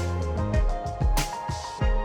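Background music with a steady beat: drum hits over sustained instrument notes.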